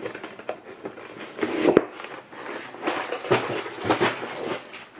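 A cardboard model-kit box and bagged plastic parts being handled: irregular rustling with several sharp knocks.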